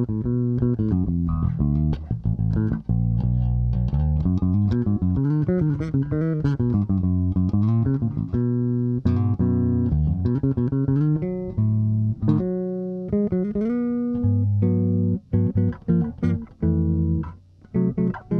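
Brice HXB2-405 headless multiscale five-string electric bass played with both soapbar pickups on in passive mode: a line of plucked notes with sliding pitches in the first half, then separate, shorter notes with brief gaps near the end. A tone the player finds muddy, with little definition on the B string.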